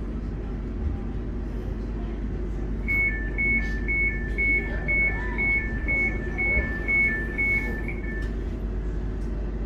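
Passenger door warning beeps on a Class 710 Aventra electric train: a higher and a lower tone alternate about twice a second for roughly five seconds, starting about three seconds in. Underneath runs the steady low hum of the train standing at the platform.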